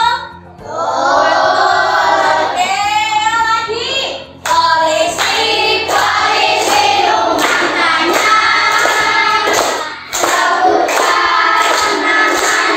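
A group of children singing together. From about four seconds in, rhythmic hand clapping keeps a steady beat under the singing.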